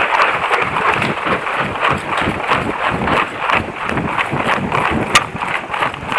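Running footsteps on a dirt path, about three footfalls a second, with paintball gear jolting along and wind on the microphone. A single sharp crack sounds about five seconds in.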